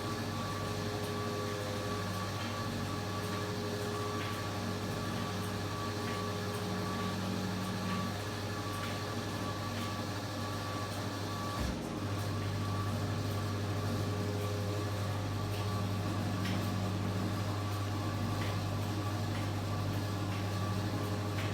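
Washing machine running with a steady low hum and faint ticks. About twelve seconds in there is a short click and break, after which the hum carries on slightly louder.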